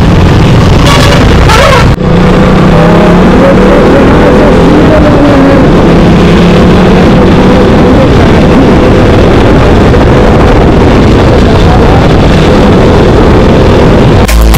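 Loud, steady road-vehicle noise with traffic, the sound of a vehicle running on a busy road.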